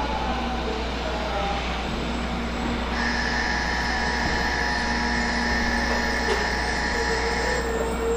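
A 700 series Rail Star shinkansen pulls slowly into the platform and brakes. Under a steady rumble there are thin whining tones, with high ones from about three seconds in until shortly before the end.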